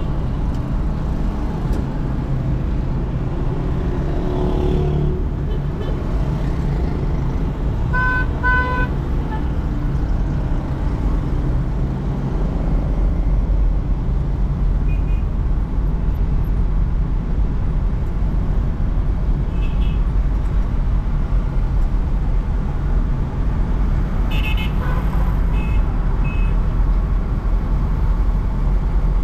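Steady road and engine noise of driving through city traffic. Two short car horn toots come about eight seconds in, and fainter horns sound again later.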